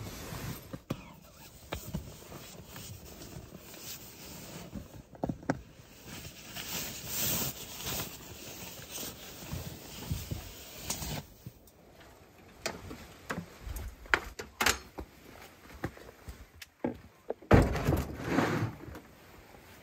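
Rustling of sleeping bags, pillows and tent fabric as bedding is handled and packed, with scattered clicks and knocks. Near the end comes a loud thud and scrape as a hard cooler is moved on a truck tailgate.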